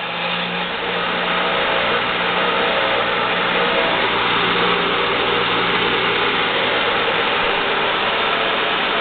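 ENCO 12-inch disc sander's electric motor running with the disc spinning free and unloaded: a steady whir with a low hum, running smoothly and in good working order.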